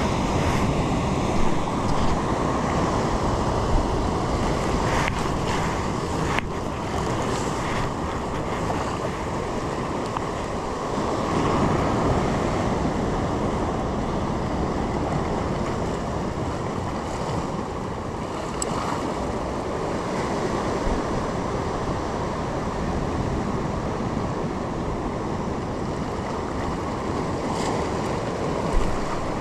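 Steady wash of the sea mixed with wind buffeting the microphone, a continuous rushing noise without any distinct events.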